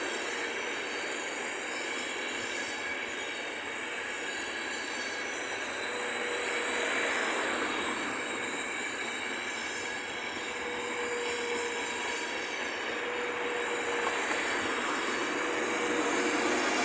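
Trenitalia Intercity passenger coaches rolling past close by: steady wheel-on-rail rolling noise, with a faint whine that comes and goes.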